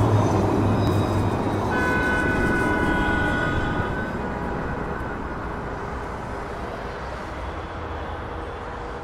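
A low mechanical rumble with a steady hiss. About two seconds in, a high, many-pitched squeal joins it for a couple of seconds, and then everything slowly fades.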